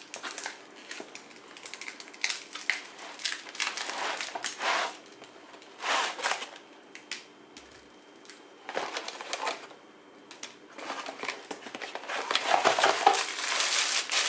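A cardboard box being opened by hand: irregular bursts of cardboard scraping and rubbing as the end flap is pulled open and the inner box slides out. Over the last couple of seconds it turns louder and denser, with plastic packaging crinkling.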